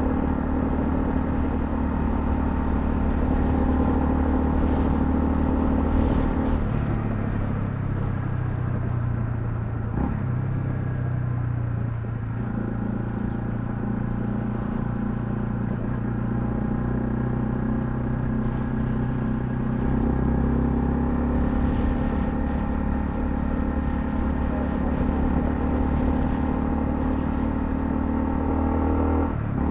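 Honda CL250 motorcycle engine running under way. The engine note steps down about six and a half seconds in, changes again around ten and twelve seconds, and dips briefly near the end, as with gear changes and throttle changes.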